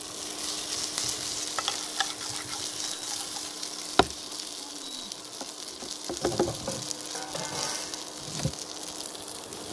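Hot mustard oil sizzling in a frying pan while a wooden spatula stirs and tosses pieces of steamed pathor with mustard seeds, scraping against the pan. There is one sharp knock of the spatula on the pan about four seconds in, over a steady low hum.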